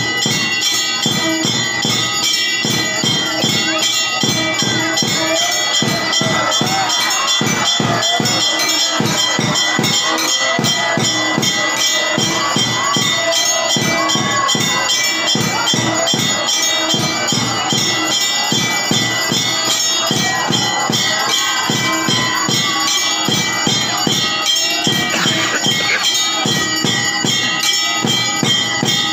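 Temple bells ringing without a break, struck in a fast, even clatter with a steady ringing tone over it. This is the bell-ringing that goes with the aarti, the waving of the camphor flame before the deity.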